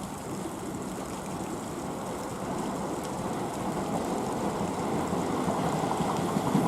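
An approaching electric train, its steady rumble of wheels on rail growing louder.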